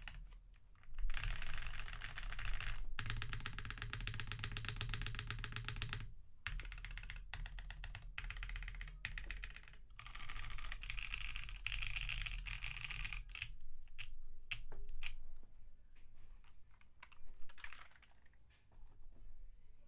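Typing on a Cruelworld CW60 mechanical keyboard with Hoshizora switches lubed with Krytox 205g0 and Owlab stabilizers: fast, continuous runs of keystrokes that thin out to slower, scattered presses in the last few seconds.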